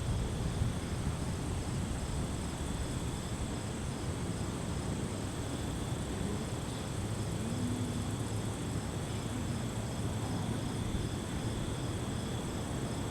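Crickets and other night insects trilling steadily, one chirping in an even pulse, over a constant low rumble.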